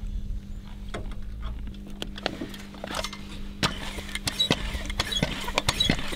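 Clicks and knocks of a Goodyear foot pump's hose being fitted to the valve of a small pneumatic jockey-wheel tyre and the pump being handled. The clicks start about two seconds in and grow denser towards the end, as the first strokes of the foot pump begin.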